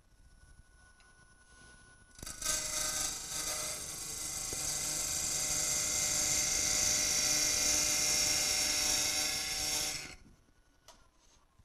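A turning tool cutting across the face of a wooden disc spinning on the lathe to true it up. A steady hiss of cutting comes in about two seconds in, runs for about eight seconds, and stops abruptly.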